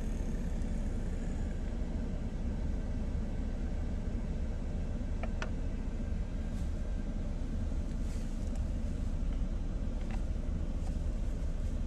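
Steady low rumble of a semi truck's diesel engine idling, heard from inside the cab. A couple of faint clicks, about five and ten seconds in, as food is spooned onto a plastic plate.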